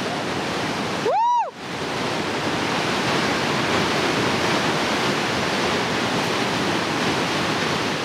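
Whitewater of a large muddy Colorado River rapid rushing steadily. About a second in, a brief high tone rises and falls in pitch for about half a second, and the water noise cuts out under it.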